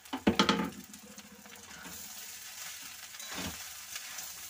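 Spatula scraping against a steel kadai while stirring flattened rice (poha) and vegetables frying in oil, over a steady sizzle. A quick run of loud scraping strokes comes just after the start, and another stroke about three and a half seconds in.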